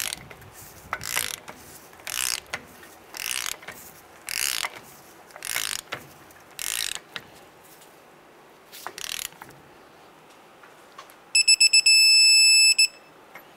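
Ratcheting torque wrench turning the spindle nut down onto the front wheel bearings of a Ford F-150 hub. Its pawl clicks on each back-stroke, about once a second, then stops. Near the end come a few quick high beeps and a steady beep about a second long, the wrench's signal that the 50 ft-lb setting has been reached.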